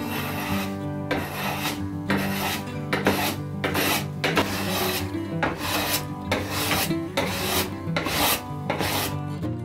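Hand plane pushed in repeated strokes across an oak board, each stroke a noisy shaving of the wood, about one and a half strokes a second, with background music underneath.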